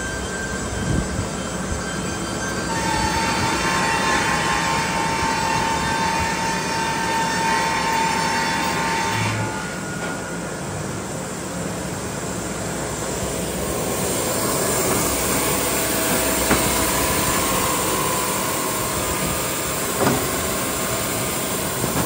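Baker band sawmill running steadily, its blade cutting through a log with a high steady whine for several seconds. The cut eases off for a few seconds, then a cut starts again. A couple of short knocks sound over the machine noise.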